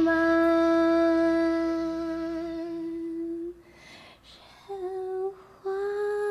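A voice humming a long steady note that fades over about three seconds, a breath, then a short note and another long held note near the end.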